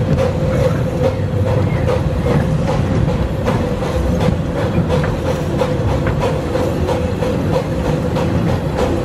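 Miniature steam train running along its track, heard from an open passenger car behind the locomotive: a continuous rumble with frequent clicks from the wheels and a steady tone running through it.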